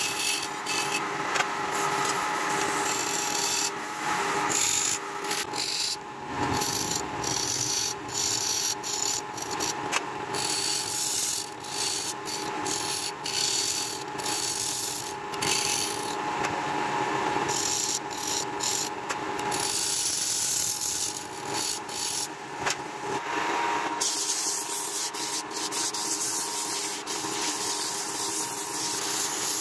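Hand-held turning chisel cutting a large wooden disc on a spinning wood lathe: a rough, uneven scraping of steel on wood over the steady hum of the lathe motor. About three-quarters of the way through the scraping eases into a smoother, softer rubbing.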